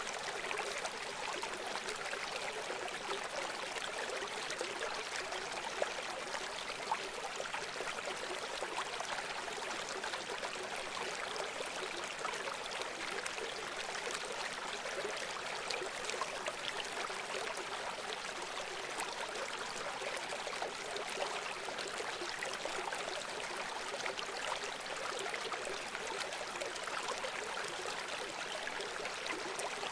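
Stream or small river flowing steadily over stones, a continuous rushing and trickling with no change.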